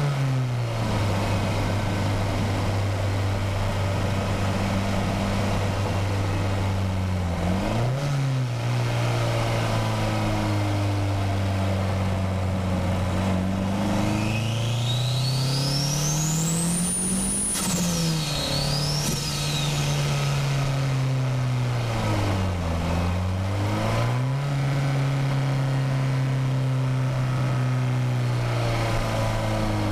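Nissan SR20DET turbocharged four-cylinder engine driven on and off throttle, its pitch falling, holding, then climbing again several times. The longest pull comes about halfway through, with a high turbo whistle rising alongside the revs until the throttle comes off suddenly. The engine dips once more a few seconds later and picks back up.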